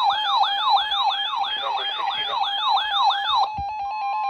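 Emergency alert tones: a siren-like warble of rapid repeating sweeps, about three a second, over a steady tone. A little after three seconds in it gives way to steady alert tones with a fast, even pulsing. The tones signal an incoming weather radio tornado warning.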